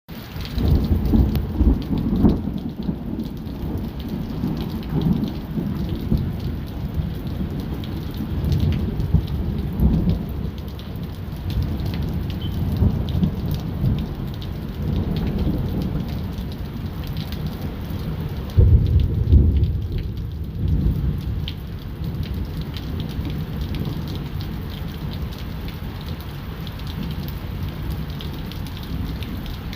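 Thunderstorm: steady rain with rolling thunder that swells and fades several times, the heaviest rumble about two-thirds of the way through.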